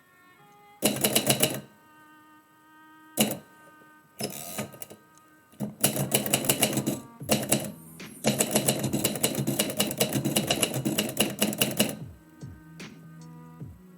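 Typewriter keys struck in quick runs of typing, several bursts broken by short pauses, the longest lasting about four seconds in the second half. Quiet background music plays underneath.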